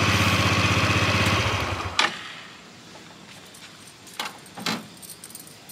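Motor scooter engine running steadily, then stopping about two seconds in with a sharp click. A couple of light clicks follow.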